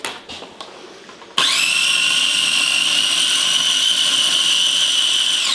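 Small red electric food processor (mini chopper) whirring as it blends pesto. Its motor starts about a second and a half in and rises quickly to a steady high whine. It runs evenly for about four seconds, then starts winding down right at the end.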